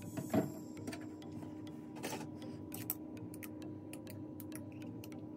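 Small irregular clicks and knocks from a glass bottle of milk and strawberries and a milk carton being handled, with a louder knock about half a second in. A steady low hum runs underneath.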